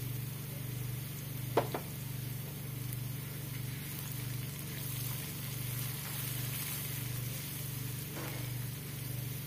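Chopped onions, chillies and curry powder sizzling in hot oil in a wok, stirred with a wooden spatula, over a steady low hum. One sharp knock about a second and a half in.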